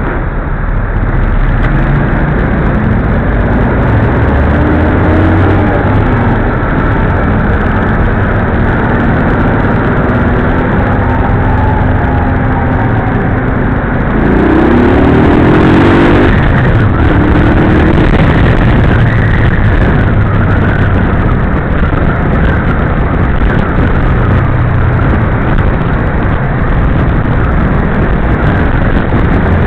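Motorcycle and scooter engines in dense city traffic under a steady rush of road noise. About halfway through, an engine revs up in rising steps as the bikes pull away.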